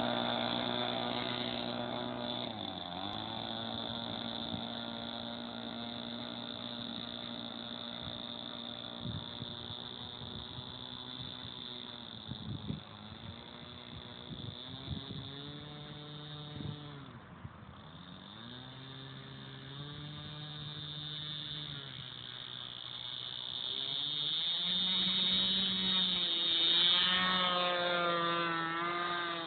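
Engine of a Flair Puppeteer RC model biplane running on the ground, its pitch dropping and coming back up several times as the throttle is worked while taxiing. Near the end it is opened up to full throttle for the take-off run and climb, getting louder and higher.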